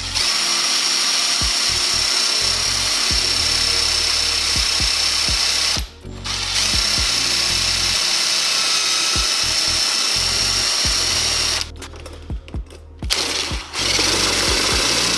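Power drill with a 3/32 bit drilling out rivets, running with a steady high whine. It stops briefly about six seconds in, and again for a couple of seconds near the end, with a few knocks before it starts again.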